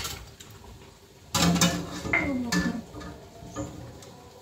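A metal ladle clinks sharply against a cooking pot. About a second and a half in comes a louder stretch of clatter with a squeaky, wavering pitched sound, then a few light clinks.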